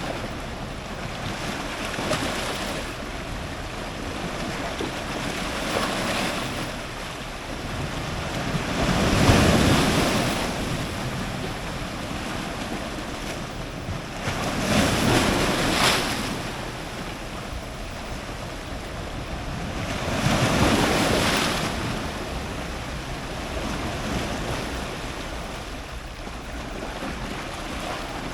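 Strong ocean surf breaking on rocks over a steady wash of water. Three larger waves crash about six seconds apart, with smaller swells between them.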